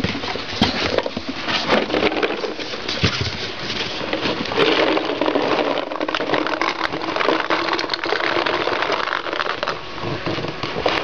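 Paint-smeared paintballs rolling and clattering against each other and the cardboard as a paint box is tilted and shaken: a dense, continuous rattle of many small clicks.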